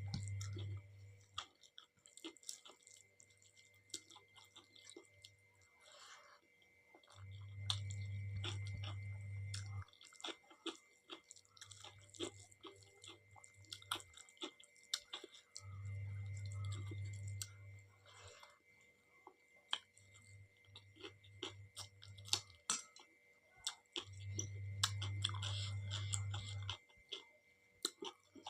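Close-miked chewing of soft rice and dal, with many wet mouth clicks. A low hum swells and fades at a steady slow rhythm underneath.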